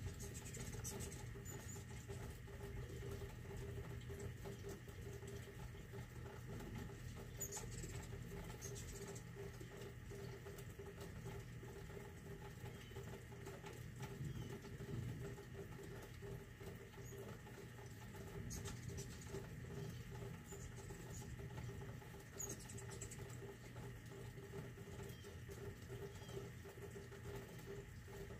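Steady rain pattering in a thunderstorm, with a few brief high chirps from hummingbirds.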